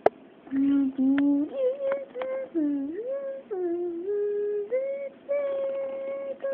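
A voice humming a wordless tune in held notes that slide up and down from one pitch to the next.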